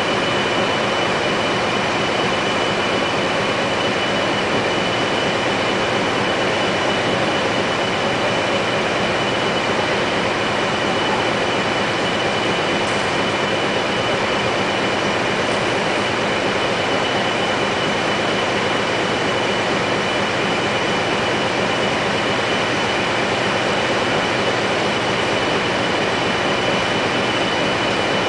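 Heavy-load moving machinery running steadily, a continuous mechanical din with a constant high whine, as the hydraulic rig edges the large compressor package along.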